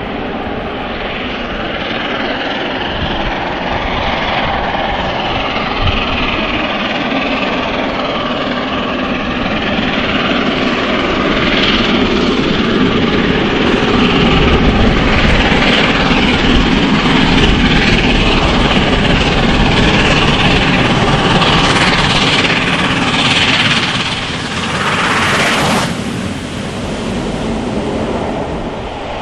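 Steam locomotive 60163 Tornado, a three-cylinder LNER Peppercorn A1 Pacific, working hard up a steep bank with a heavy train, its exhaust blasting and growing louder as it approaches. There is a brief louder rush about 25 seconds in.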